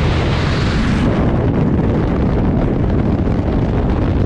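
Freefall airstream buffeting a helmet-mounted camera's microphone: loud, steady rushing wind noise with a heavy low rumble.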